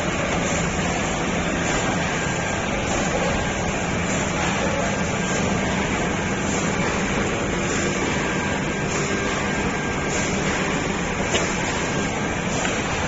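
ZFM-1080KC automatic film laminating machine running steadily, a constant mechanical hum with a faint hiss that repeats about every second and a bit.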